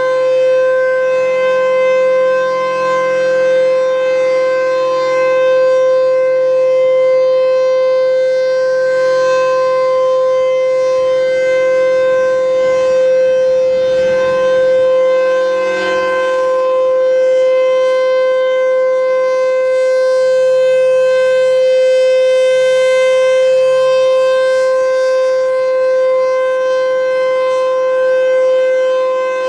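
Federal Signal Thunderbolt 1000 tornado siren sounding during a test. It holds one loud, steady pitch at full speed, with only slight swells in loudness.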